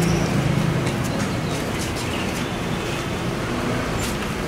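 City street traffic: vehicle engines running and road noise, with a low engine hum strongest in the first second.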